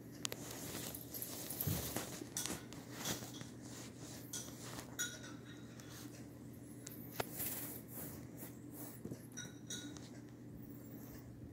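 Scattered light taps, clicks and rustles of a kitten playing on a hardwood floor around a fabric cat tunnel and small toy balls, over a low steady hum.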